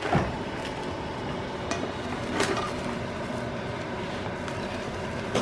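Marble rolling pin rolling out soft noodle dough on a floured wooden cutting board: a soft steady rumble with a few light knocks.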